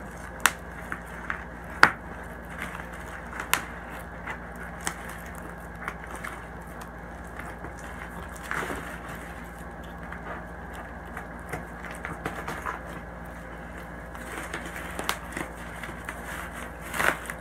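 Bubble wrap being popped and crushed by hand: scattered sharp pops and crackles at an irregular pace, with a loud pop about two seconds in and another cluster near the end.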